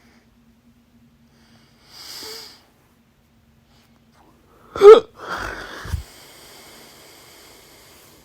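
A loud hiccup: one sudden squeaky gulp about five seconds in, followed by a breathy exhale that fades out. A soft breath comes about two seconds in.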